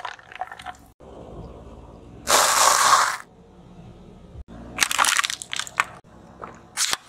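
Car tyres crushing small plastic objects on asphalt, in several short cuts: crunching and cracking plastic, with a loud hiss about a second long near the middle and a sharp crack just before the end.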